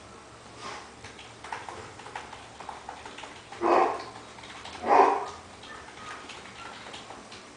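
Two dachshunds squabbling over a plush toy: one gives two short, loud barks about a second apart, near the middle, over faint scuffling on the bedding.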